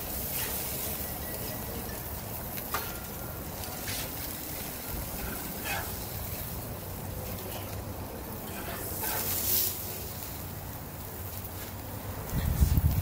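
Burgers sizzling over a gas grill's open flames, with a metal spatula scraping and clinking on the grill grates a few times as the patties are lifted off. A low rumble of wind on the microphone comes in near the end.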